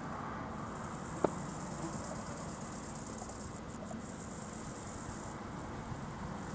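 An insect stridulating in the grass: a high-pitched buzz that starts about half a second in and stops about five seconds in. Under it is a low, steady background noise, with one sharp click about a second in.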